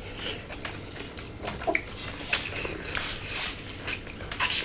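Mukbang eating sounds from two people eating a pork salad with fresh greens by hand: chewing and lip-smacking, with scattered short clicks, the sharpest about two seconds in.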